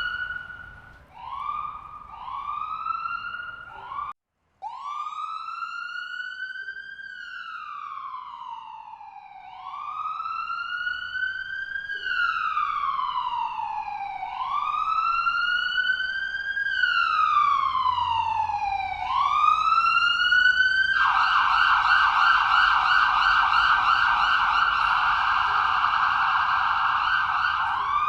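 Electronic ambulance siren cycling through its tones. It starts with a fast yelp of short rising whoops and cuts out briefly about four seconds in. It then runs a slow wail rising and falling about four times, and near the end switches to a rapid warble held at one pitch.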